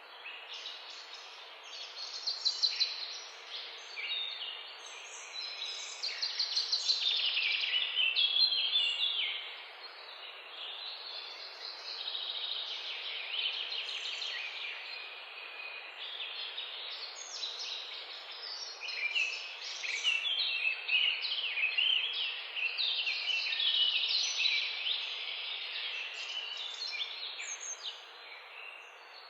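Bird-like chirping and twittering: many quick, high chirps and trills overlapping, swelling and fading in irregular bursts over a steady hiss.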